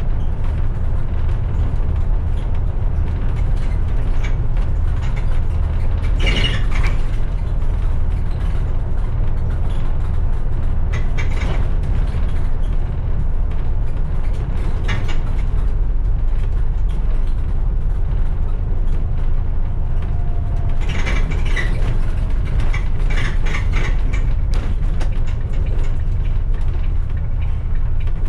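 Steady low engine and road rumble heard from inside a moving bus, with bursts of rattling and creaking from the body and fittings, the busiest stretch about three quarters of the way through.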